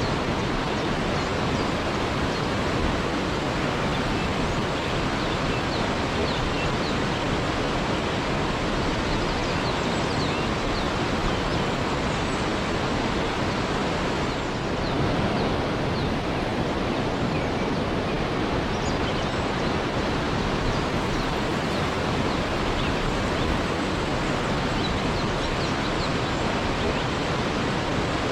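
Waterfall: a steady, unbroken rush of falling water, with faint short high chirps here and there above it.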